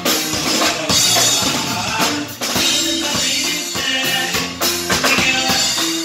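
Live dance band playing: accordion holding sustained notes over a drum kit keeping a steady beat with bass drum and snare.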